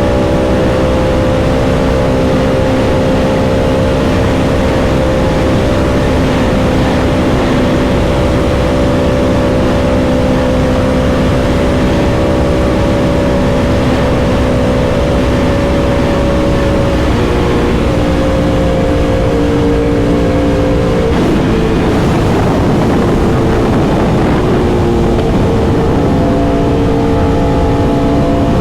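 Yamaha R1M's crossplane inline-four engine running at a steady cruise under way, over a constant rush of wind and road noise. The engine note changes pitch in steps about 17 and 21 seconds in, then wavers.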